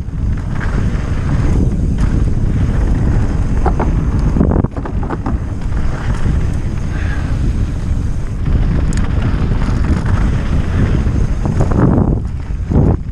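Wind buffeting a GoPro action camera's microphone during a fast downhill mountain-bike run, over a steady rumble of tyres on the dirt trail. A few short clattering knocks come about four and a half seconds in and again near the end.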